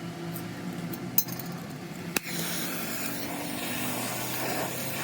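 Workshop sounds of metal tools: two sharp clinks a second apart over a steady low hum, followed by a hissing rush of noise.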